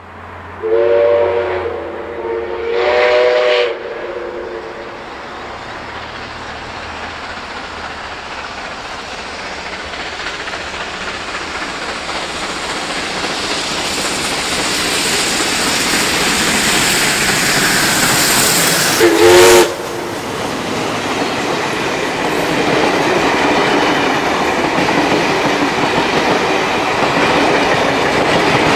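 Steam locomotive 5917 sounding two chime-whistle blasts near the start, then the noise of the train growing steadily louder as it approaches, with one more short, loud whistle blast about two-thirds of the way through before the carriages roll past.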